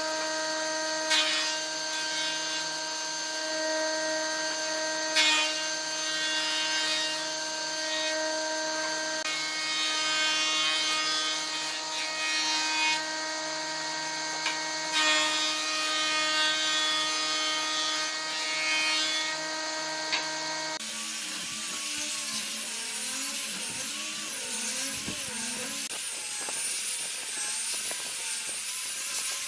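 An electric woodworking power tool running with a steady whining hum and a few sharp knocks. About two-thirds of the way through, the sound changes abruptly to a hiss with a wavering whine.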